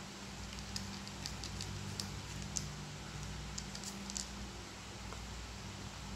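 Cats chewing dry kibble: scattered small, crisp crunches and clicks at an irregular pace, over a steady low hum.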